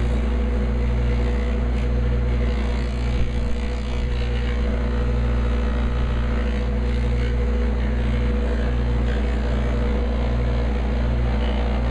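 Electric buffing machine running steadily at about 3,400 RPM, a steady motor hum, while a wooden picture frame is held with a light touch against its soft cloth buffing wheel.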